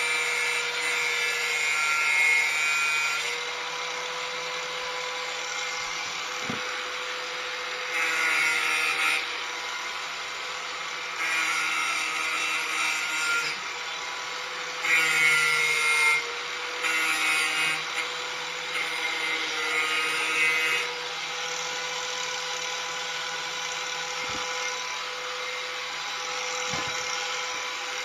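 Corded angle grinder running steadily with a constant whine, its disc pressed against a steel lawn mower blade in about seven separate grinding passes of one to three seconds each to sharpen the cutting edge. Near the end the grinder runs free for several seconds without touching the blade.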